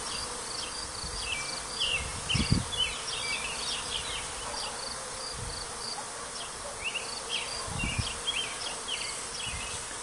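A disturbed honeybee swarm buzzing steadily, with short high chirps repeating over it and a couple of soft low bumps, about two and a half seconds in and again near eight seconds.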